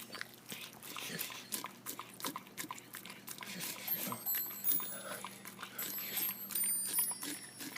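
A dog eating its dinner greedily, with rapid irregular chewing, smacking and clicking of its teeth on the food.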